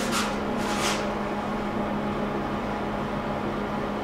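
A steady machine hum with a strong low tone. Two short hissing swooshes come in the first second.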